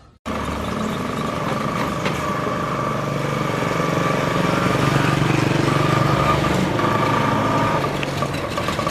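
Small vehicle engines running steadily on a street: a bajaj auto-rickshaw coming along the road and a motor scooter going past. The engine sound swells a little in the middle.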